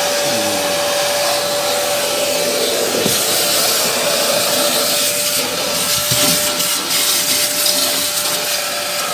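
Vacuum cleaner running steadily with a steady motor whine as its nozzle sucks along a car's rubber floor mat and around the seat bases. There are a couple of brief knocks, about three and six seconds in, as the nozzle bumps the floor and seat frames.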